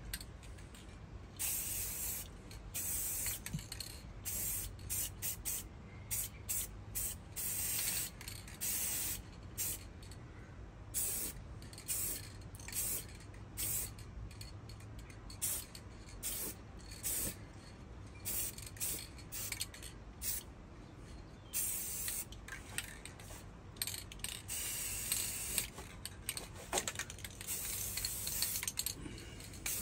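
Aerosol spray paint can (Rust-Oleum, dial set to low output) spraying black paint in a long series of short hissing bursts, with a few longer passes of a second or more.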